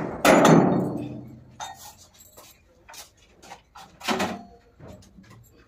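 Heavy metal clang with a long ringing tail about a quarter second in, as iron bars or girders are set down, followed by lighter knocks and clatter and a second, smaller clang about four seconds in.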